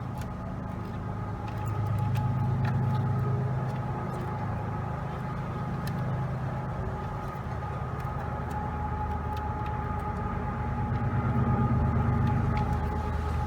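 Steady low machine hum, like an engine or motor running, swelling slightly a couple of times, with a few faint clicks over it.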